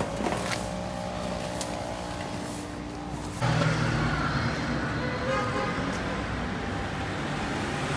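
Street ambience of passing motor traffic. About three and a half seconds in the sound cuts abruptly to a louder, lower engine hum.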